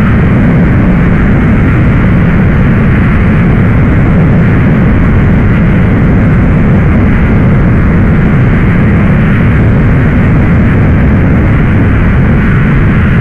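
Rocket engine thrust sound effect: a loud, steady rumbling rush of noise, deepest at the low end, holding even without rising or falling.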